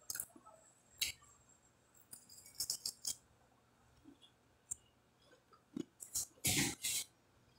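Crisp crunching of a buttered water-and-salt cracker being bitten and chewed. It comes in short, irregular crackly bursts, with a cluster about two to three seconds in and the loudest crunches near the end.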